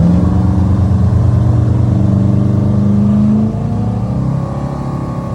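Four Winns motorboat's engine running at high revs, then easing off about three and a half seconds in, dropping in loudness as its pitch falls.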